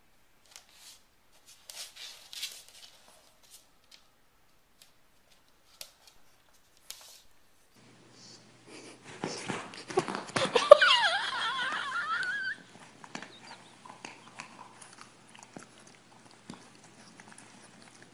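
Scattered small clicks and rustles, then, about nine seconds in, a dog gives a loud, wavering cry that rises in pitch and lasts about three seconds before it breaks off.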